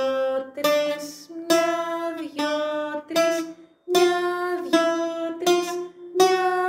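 Greek bouzouki playing a slow melody, plucked notes in short phrases with brief breaks between them: the opening of a song in the Sabah scale, played slowly.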